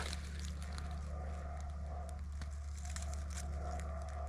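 Faint crackling and rustling of forest-floor leaf litter and twigs, with scattered small clicks, over a steady low hum.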